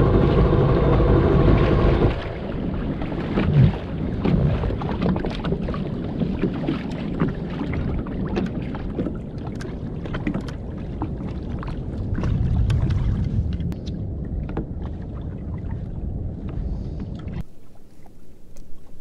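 Jet ski engine running loudly and evenly for about two seconds, then dropping to a lower, uneven running sound with many small clicks and knocks. It swells briefly and then cuts off abruptly near the end.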